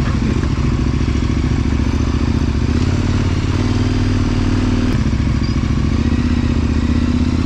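KTM 1090 Adventure's V-twin engine running steadily at low revs under way on a trail, its note shifting slightly a couple of times.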